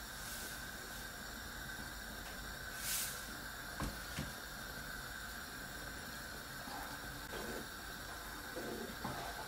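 A pot of soup simmering on a gas stove, a low steady hiss. About three seconds in, a short rush of salt poured from a shaker bottle into a wooden spoon, then two light knocks, and near the end the wooden spoon stirring through the soup.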